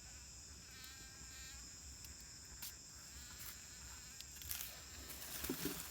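Faint steady chorus of insects with a high continuous buzz, and a few brief buzzes passing close. A couple of faint knocks and a low voice fragment come near the end.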